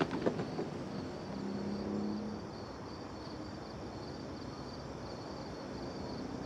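Night ambience of crickets chirping in a steady, high, pulsing trill over a low background hum. There are a few sharp clicks right at the start and a brief low tone between about one and a half and two and a half seconds in.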